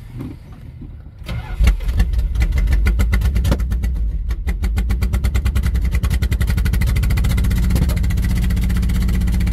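Dodge 318 V8 engine being cranked over starting about a second in. It catches after a few seconds and settles into a steady, evenly pulsing run.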